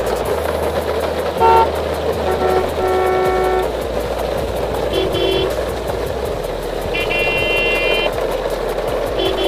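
Vehicle horn honking in short toots of several different pitches, about six in all, the longest about a second long, over a steady noisy background.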